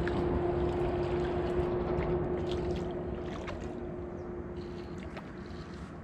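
Motorboat engine running with a steady hum, slowly fading over the last few seconds.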